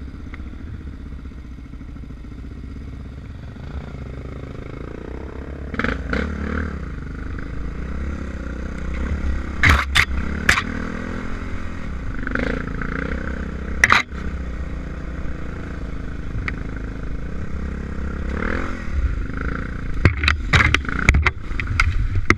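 Enduro motorcycle engine running and revving under load on an uphill off-road climb, louder from about six seconds in. Sharp knocks and clatter sound as the bike jolts over the ground: a few around the middle and a quick run of them near the end.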